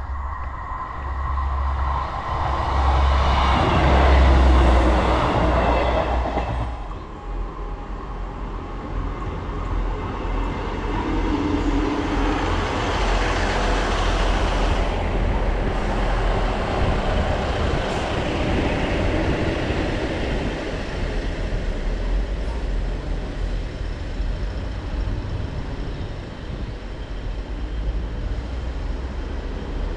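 Class 158 diesel multiple unit pulling away from a station, its underfloor diesel engines running and wheels on the rails, slowly fading as it draws away. A louder rush peaks about four seconds in and stops abruptly about seven seconds in.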